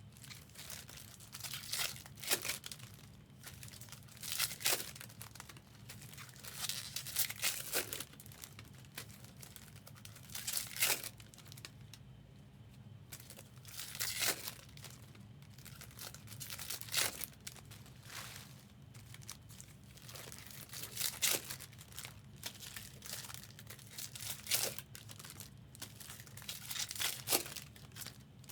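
Foil trading-card pack wrappers being torn open and crinkled, over and over, a short rip-and-crinkle every two to three seconds.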